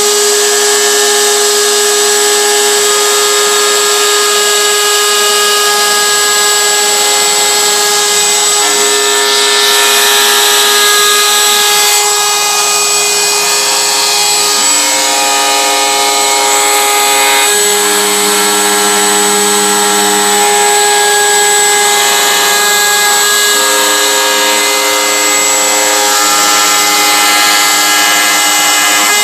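CNC router spindle running with a steady high whine while a pointed V-bit carves a star outline into a wooden cabinet door. Lower tones underneath change pitch every few seconds.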